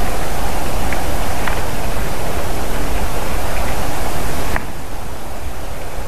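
Steady wind noise on an outdoor camera microphone, a hiss with a low rumble under it; the hiss drops abruptly about four and a half seconds in. A few faint short high ticks sit beneath it.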